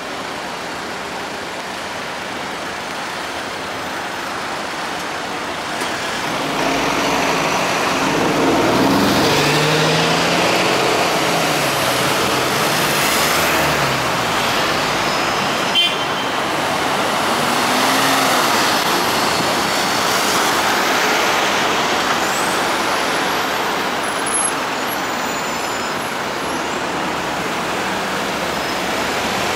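Dense, slow-moving city road traffic: car, van and bus engines idling and creeping along. A heavier engine runs louder for several seconds about a third of the way in, and there is a single sharp click a little past halfway.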